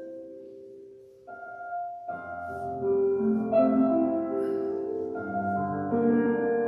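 Solo piano playing: a held chord dies away, a soft new note enters about a second in, and fuller, louder chords begin about two seconds in.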